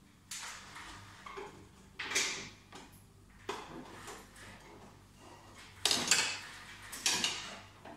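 Metal clinks and scrapes of a long screwdriver working in the side of a laser machine's metal cabinet, coming in several separate sudden bursts, the loudest pair about six seconds in.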